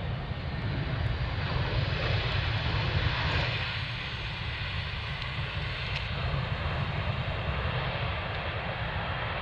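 Jet airliner engine noise from an aircraft near the runway: a steady rumble with a hiss above it that swells to its loudest about three seconds in, then eases a little.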